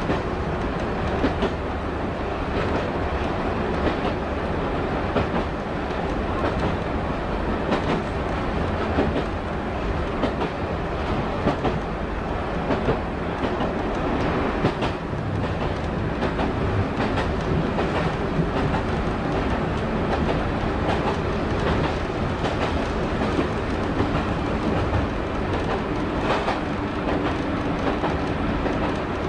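Diesel multiple unit running along a branch line, heard from inside the front cab: a steady engine and running rumble, with wheels clicking now and then over rail joints.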